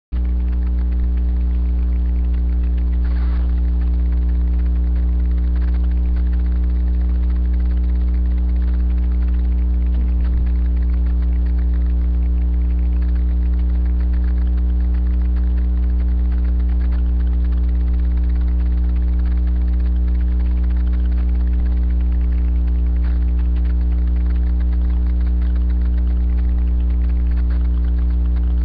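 Loud, steady electrical mains hum with a stack of even overtones, picked up through a webcam's microphone.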